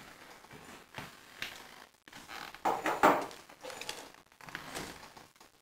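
A few faint knocks and rustles from objects being handled, spread over several seconds.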